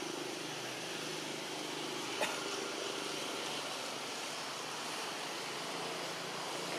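Steady outdoor background noise with a low hum running under it, with a single sharp click about two seconds in.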